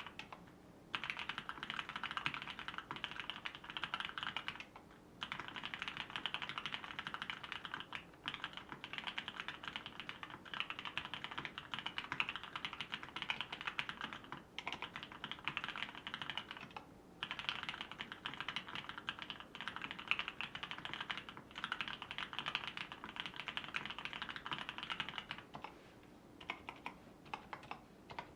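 Fast, continuous typing on a mechanical keyboard with lubed vintage Cherry MX Black linear switches on 55 g springs, in an aluminium-plate OTD 360 Corsa case with Cherry dye-sub keycaps. Steady runs of keystrokes break off in brief pauses every few seconds and thin out to scattered single presses near the end.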